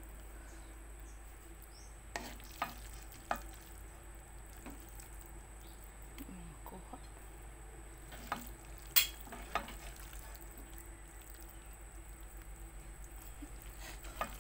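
Spaghetti in meat sauce being stirred and tossed with a wooden spatula in a metal pan on a gas burner, over a low, steady frying sound. The spatula knocks against the pan a few times around two to three seconds in, again with one louder knock around nine seconds in, and once more near the end.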